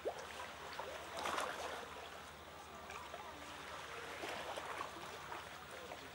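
Water sloshing and trickling around rocks, with small splashes from a spotted seal pup paddling at the surface, loudest about a second in.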